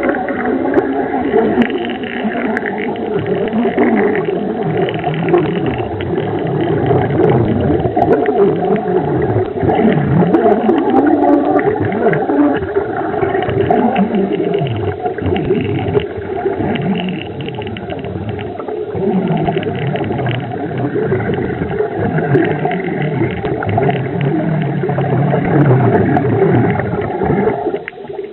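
Underwater sound: continuous gurgling and bubbling, with low tones that bend up and down.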